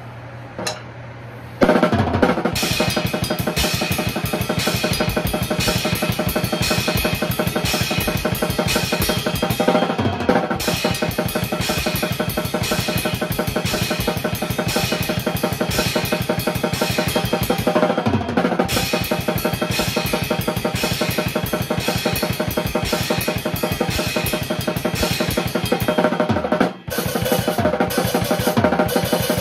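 A drum kit played fast and continuously, bass drum, snare and cymbals together. It starts suddenly about two seconds in after a single tap, with a brief break near the end.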